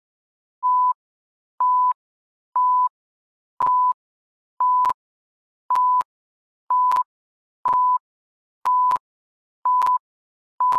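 Countdown timer beeps: eleven short electronic beeps at one steady pitch, about one a second, with silence between. From about four seconds in, each beep comes with sharp clicks.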